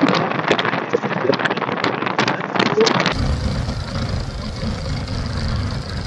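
Wind rushing and buffeting over a Bluetooth earbud's microphone on a moving motorcycle, thin-sounding with the lows and highs cut off. About three seconds in it switches abruptly to a fuller recording dominated by a low rumble.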